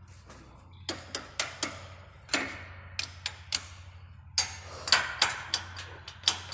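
Irregular sharp metal clicks and taps as a hand tool works the hook parts of a chain link fence weaving machine while they are being set, starting about a second in and coming in small clusters. A low steady hum runs underneath.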